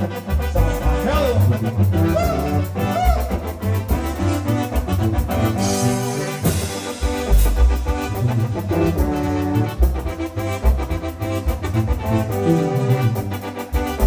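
Live band music from synthesizer keyboards and a drum kit playing a steady dance beat, with a brief cymbal-like wash about six seconds in.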